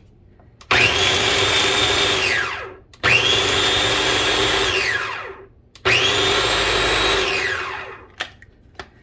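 Food processor pulsed three times, chopping garlic scapes into chunks. Each time the motor whines up quickly, runs about two seconds and winds down when released.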